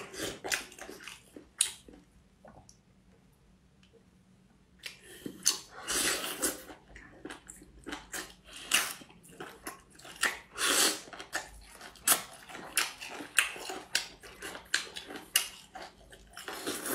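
A person chewing and crunching food close to the microphone: rapid sharp crunches and wet smacks. They stop for a few seconds about two seconds in, then start again.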